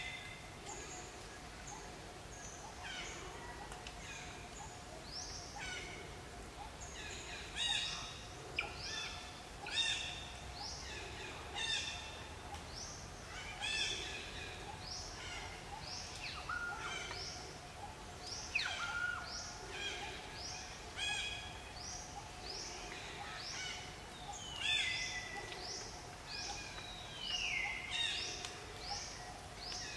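Birds calling repeatedly: short chirps every second or two, and now and then a slurred whistle that falls in pitch, over a steady faint hum.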